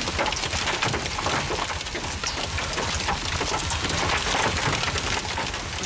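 Heavy rain mixed with hail pelting the vehicle, heard from inside the cab: a dense, steady patter of countless small impacts over the rush of the downpour.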